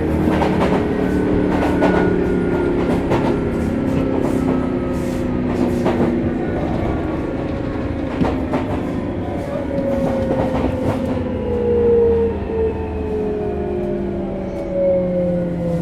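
Hitachi GTO-VVVF inverter and traction motors of a Sotetsu New 7000 series car whining, heard from inside the car. Several tones slowly fall in pitch as the train slows under braking. The car's motors are known for an unusual noise, and wheels click over rail joints over a steady rumble.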